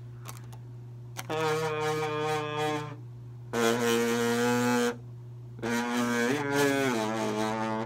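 A man humming into a long cardboard tube with wax paper stretched over its far end by a rubber band, a homemade giant kazoo: three long buzzy notes, the last one stepping down in pitch partway through. The wax paper membrane is buzzing, so the giant kazoo works.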